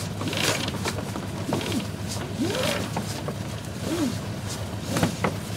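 Sailing yacht's lines creaking through the clutches and blocks while the mainsail is lowered for reefing. There are short squeaks that rise and fall in pitch every second or so, and a few sharp clicks, over a steady low rumble of wind and the running engine.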